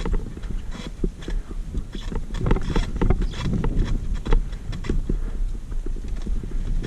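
Mountain bike riding over rough dirt trail: a steady low rumble of wind on the microphone with irregular clicks, knocks and rattles from the bike.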